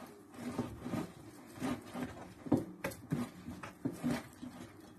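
Hands kneading a soft, wet bread dough in a glass bowl: an irregular string of short, soft slaps and pats as the dough is worked.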